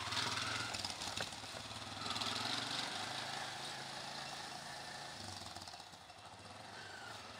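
A three-wheeler auto-rickshaw's small engine running as it drives off along a rough, muddy road. It is loudest a couple of seconds in, then fades as the rickshaw moves away.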